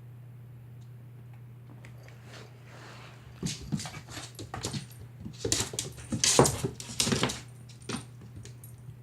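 Domestic cat panting with its mouth open after chasing a laser pointer: a run of quick, noisy breaths that starts a few seconds in, is loudest just past the middle and fades near the end. A low steady hum runs underneath.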